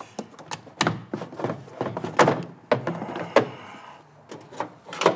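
Irregular hollow plastic knocks and clunks as a 2014 Chevrolet Silverado's air cleaner box is worked loose and pulled up out of the rubber grommets that hold it at the bottom.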